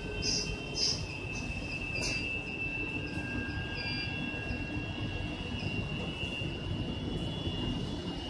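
Short electronic beeps from a Primus washing machine's control-panel keypad as its keys are pressed, two clear ones in the first second and fainter ones later, over a steady machine rumble with a high steady whine.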